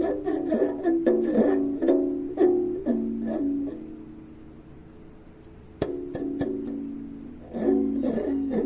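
Music on a plucked string instrument like a ukulele: a quick run of plucked notes, then a chord left to ring, with a sharp click about six seconds in before the plucking starts again.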